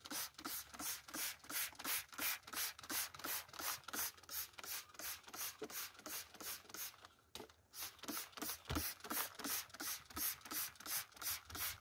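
Hand-pumped plastic trigger spray bottle squirting a fine mist onto cucumber leaves, a quick, even run of short hisses about three to four a second, pausing briefly about seven seconds in.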